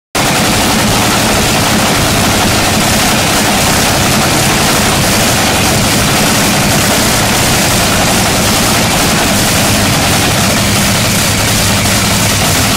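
Top Fuel dragster's supercharged nitromethane-burning Hemi V8 running during a pit warm-up. It is very loud and steady, with no rise or fall in revs.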